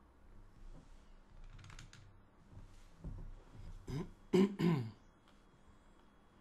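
A man clears his throat twice, two short rough sounds about four seconds in, after a few faint clicks.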